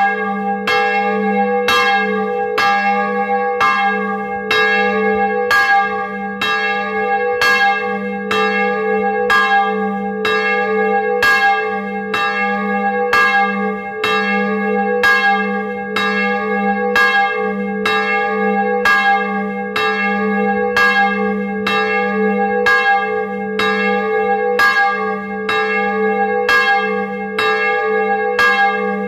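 A single swinging bronze church bell, cast in 1658 and sounding G♯3, rung in its wooden frame. Its clapper strikes in a steady, even rhythm of a little over one stroke a second, each stroke ringing on into the next.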